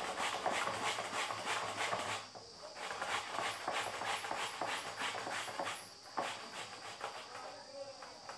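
Raw potato being grated on the coarse side of a metal hand grater: rhythmic rasping strokes, about three a second. They pause briefly about two seconds in and stop near six seconds, followed by a few single strokes.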